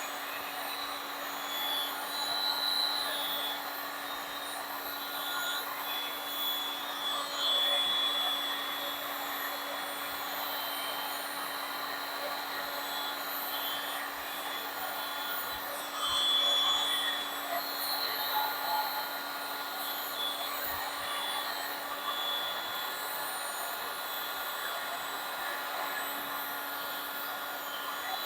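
Handheld hot-air blower running steadily, a constant fan-and-motor whir, swelling briefly a few times as it is moved over the wet epoxy resin.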